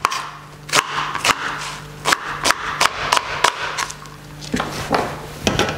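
Chef's knife chopping leek on a plastic cutting board: sharp, irregular knocks of the blade on the board, about two a second, with a short pause after the middle. A steady low hum runs underneath.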